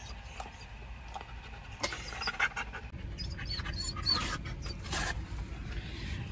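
Dog whimpering in short, faint high squeaks, with scattered light clicks over a low steady rumble.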